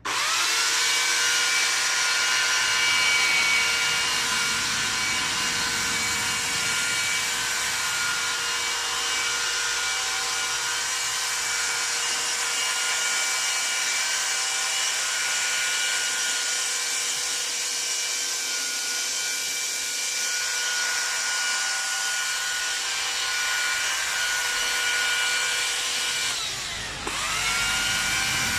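Corded electric cutting tool cutting into a hedge: its motor switches on and runs with a steady, high-pitched whine. About 27 seconds in the motor briefly winds down and spins back up.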